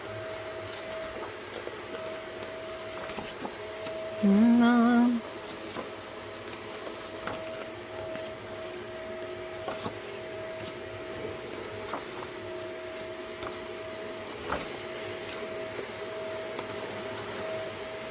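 Steady background machine hum with a constant tone, with scattered light clicks of items being handled. About four seconds in, one short, loud pitched vocal sound lasting about a second.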